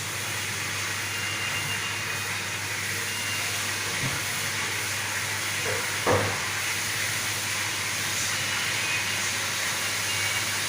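Steady hissing noise with a low hum under it and a single knock about six seconds in.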